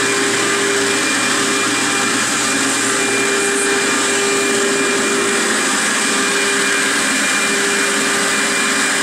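BlackBoxVac Hurricane vacuum hold-down pump running steadily under a CNC router table: a constant rushing of air with a steady whine.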